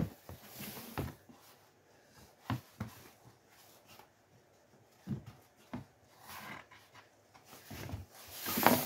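A sheet of stiff card being handled and fitted against an engine block: soft rustling with a few scattered light taps and clicks.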